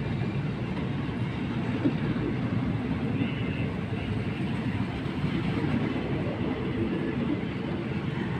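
Passenger train coaches rolling past close by, a steady rumble of wheels on the rails.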